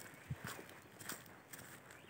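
Footsteps of a person walking on dry leaf litter on a forest floor: a few soft steps, roughly two a second.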